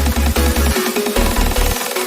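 Electronic dance music with a steady four-to-the-floor bass beat and a stepping synth melody.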